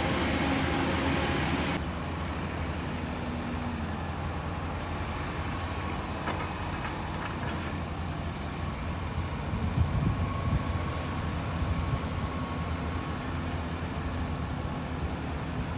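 Heavy diesel machinery running steadily at a low hum: a dump truck's engine at first, then, after a sudden change about two seconds in, a Volvo EC350 excavator's engine working close by. A few short knocks come near the middle.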